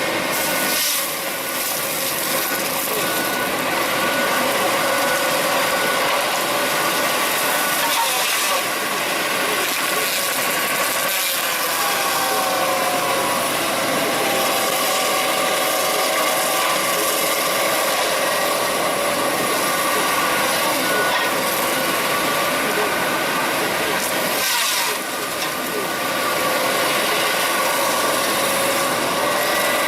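Heavy wood-cutting machinery working: a steady engine and machine noise with whining tones, dipping briefly a few times.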